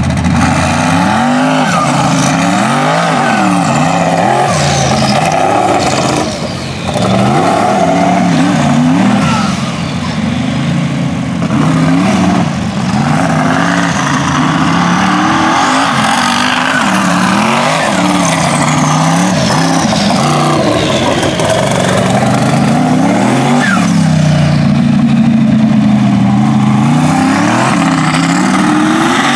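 Mega truck engine revving hard and backing off over and over, the pitch climbing and falling every second or two as the truck is throttled through tight turns on dirt.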